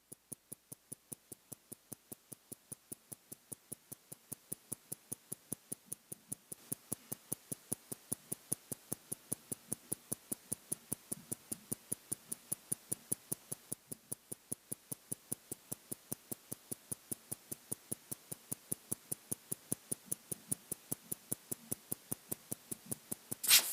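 Mechanical watch movement of Philippe Dufour's Simplicity ticking: a rapid, even train of sharp ticks, several a second, from the escapement of the nearly finished watch.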